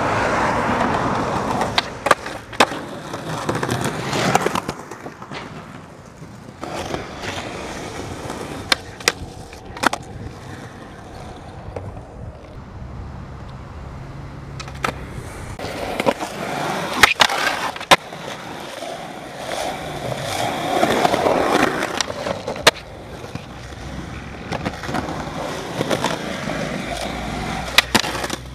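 Skateboard wheels rolling on rough concrete, broken by sharp clacks of the board popping and landing, several times over, and trucks grinding on a concrete ledge near the end.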